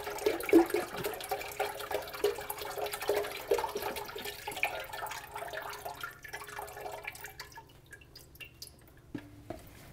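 Vegetable broth pouring from a carton into a large aluminium stockpot already part-filled with broth, splashing into the liquid in an uneven stream that tapers off about seven seconds in.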